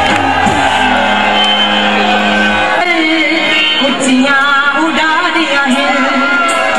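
Punjabi song with a singing voice over the music: a held low note for about the first three seconds, then a wavering, ornamented sung melody.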